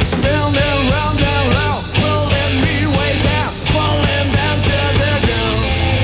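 Rock band playing, a lead line bending up and down in repeated arching notes over a steady bass and drums, heard off an FM broadcast recorded on cassette tape.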